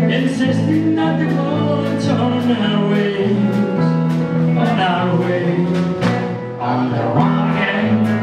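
Live honky-tonk country band playing: acoustic and electric guitars and a drum kit with a steady beat, and a male voice singing.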